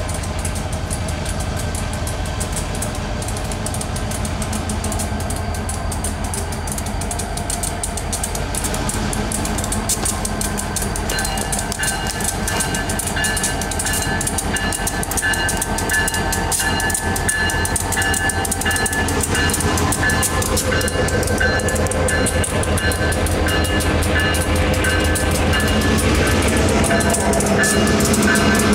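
Diesel freight locomotives approaching slowly, their engine rumble growing steadily louder. From about eleven seconds in, a high, wavering squeal comes and goes over the rumble.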